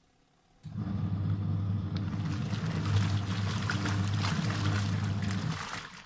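Mika 6 kg semi-automatic washing machine's wash motor humming as the pulsator churns clothes in water with a sloshing swish. It starts about half a second in and cuts off shortly before the end: the run-and-pause pattern of the wash cycle.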